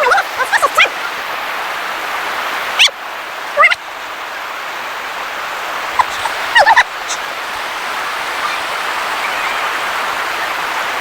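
Steady rush of river water, with brief distant voices calling out a few times in the first seven seconds.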